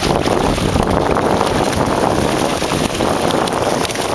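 Fish thrashing and splashing in a mesh keepnet held at the water's surface, a loud continuous churning of water.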